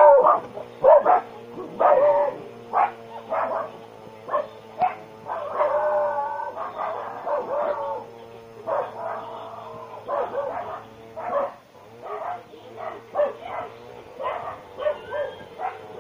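Many short, sharp animal calls in quick succession, over a steady low hum.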